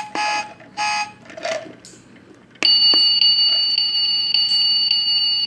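Electronic sound effect from a battery-powered toy truck: three short beeps, then about two and a half seconds in, a long, steady, high electronic tone starts and keeps sounding.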